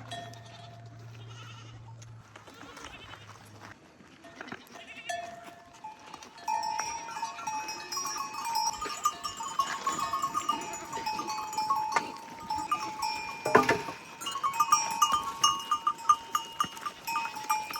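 Bells on a flock of sheep and goats, jangling and ringing from about six seconds in, with one sharp knock about two-thirds of the way through. A faint low hum is heard in the first few seconds.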